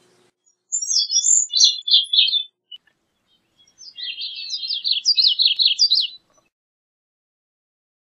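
Gray-cheeked thrush singing: two phrases of fast, high notes, the first about a second in and the second, longer and climbing in pitch, from about four seconds in.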